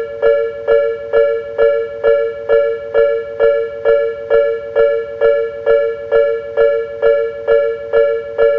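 Japanese railway level-crossing bell (the 'kan-kan' warning) ringing steadily, a little over two strikes a second, each strike a bright two-note ring. It is the warning that a train is approaching the crossing.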